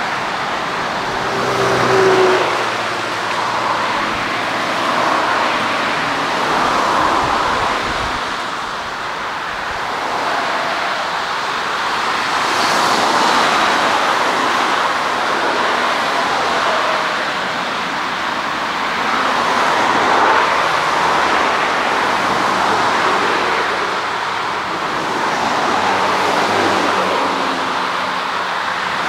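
Twin jet engines of an Airbus A320-family airliner running on the ground, a steady noise that slowly swells and fades.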